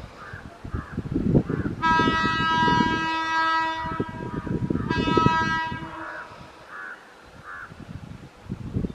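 Air horn of a WAP-5 electric locomotive sounding two blasts: a long one of about two seconds, then a shorter one about a second later. Crows caw before, between and after the blasts.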